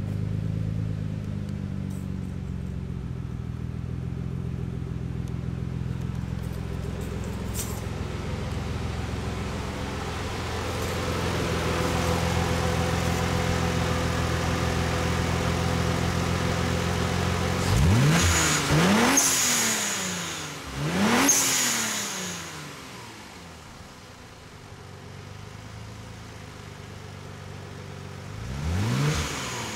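Nissan VG30DETT twin-turbo V6 with HKS SSQV blow-off valves and a cat-deleted HKS catback exhaust, running steadily and then revved sharply twice, the pitch rising and falling back each time with a hiss from the blow-off valves as the throttle snaps shut. It settles to a lower idle, and one more short rev comes near the end.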